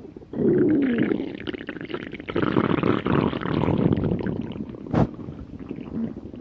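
A hungry stomach growling: a loud rumble with a wavering, falling pitch starts about half a second in, a second, longer rumble follows from about two seconds in, and a sharp click comes near the end.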